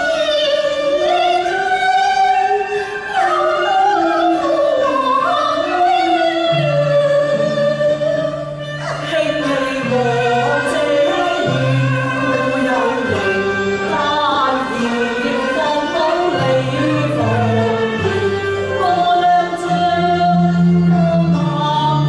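Cantonese opera aria: a singer holds and slides through long, wavering notes over the accompanying ensemble, with low bass notes joining in about six or seven seconds in.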